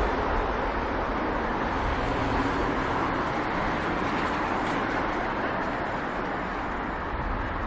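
City street traffic noise: cars driving past on the road, a steady wash of road noise with no single event standing out.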